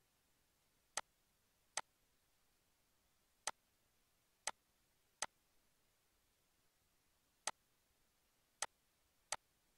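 Computer mouse button clicks, eight sharp single clicks at uneven intervals against near silence.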